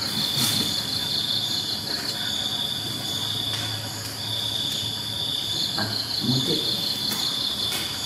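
Insects trilling: a steady high-pitched trill in stretches of a second or two with short breaks, with a second, faster-pulsing trill just above it.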